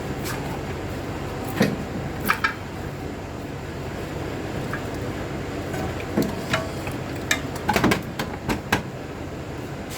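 Scattered metallic knocks and clunks as the replacement catalytic converter and its exhaust pipe are worked into place under the car, several in quick succession about three-quarters of the way through, over a steady background hum.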